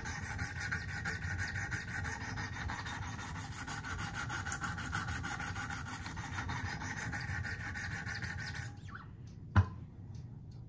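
Wicked Edge guided sharpening stone rubbing in rapid strokes along a pocket knife's edge, raising a burr on that side. The strokes stop about nine seconds in, followed by a single sharp knock as the sharpening arm is set down.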